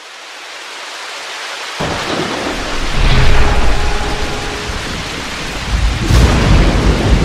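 Thunderstorm sound effect: rain hiss fading in, then rolling thunder that starts suddenly about two seconds in and swells again near the end.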